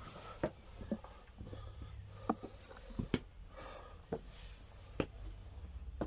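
Footsteps on the rock floor of a narrow cave passage: irregular sharp taps and scuffs, roughly one a second, over a faint low hum.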